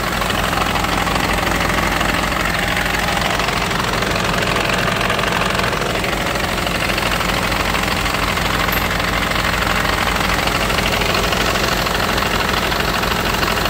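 Mercedes-Benz bus engine idling steadily, heard close up at its accessory belt drive, where the ribbed belt turns the two alternators.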